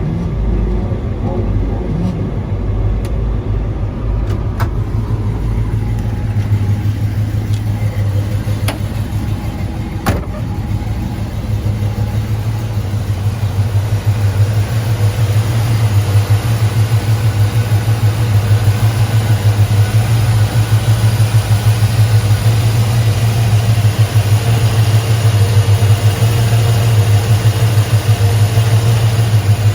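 Chevrolet 350 small-block V8 with headers and dual exhaust running at a steady idle. The exhaust note grows louder and more even about twelve seconds in, with a few light clicks in the first ten seconds.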